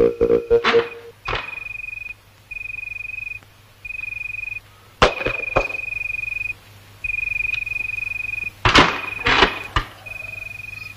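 Crickets chirping: a high trill repeating in pulses of under a second. Wooden knocks and clacks of window shutters being opened and shut cut across it, a few early on and a louder cluster near the end.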